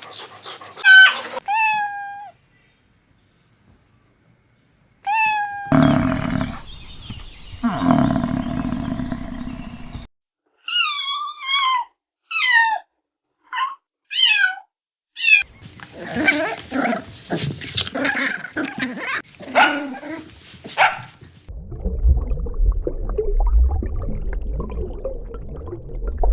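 A run of different animal calls one after another, among them cat meows: short falling cries, a loud low call, a series of quick high falling calls, then a low rumbling stretch near the end.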